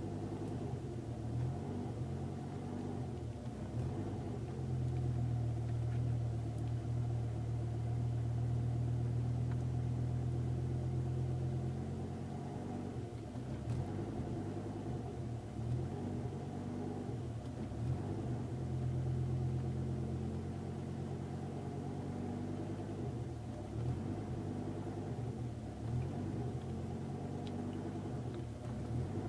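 Car engine idling, its low note swelling and sagging slowly and unevenly. The title puts this down to a vacuum leak at the TiAL Type Q blow-off valve fitted with its unpainted spring.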